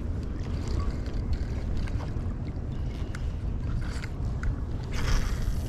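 Wind buffeting the microphone: a steady, fluttering low rumble. It carries a few small ticks and a short rush of noise about five seconds in.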